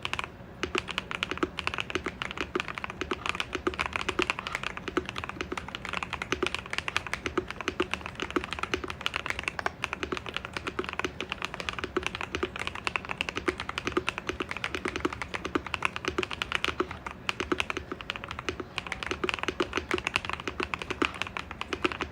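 Typing on a Monsgeek M1W mechanical keyboard fitted with lubed Akko V3 Pro Cream Black Pro linear switches, keys struck in fast, continuous runs with a couple of brief pauses.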